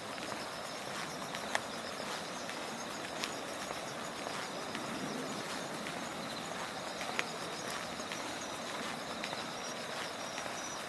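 Autumn night insects chirping in a steady high-pitched chorus over a low hiss of outdoor background noise, with a few sharp clicks and faint shoe footsteps.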